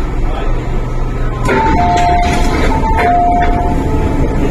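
Door-closing warning chime of an MTR M-Train: a higher tone followed by a lower tone, sounding twice in a row from about a second and a half in, as the doors slide shut. Under it runs the steady hum of the train standing at the platform.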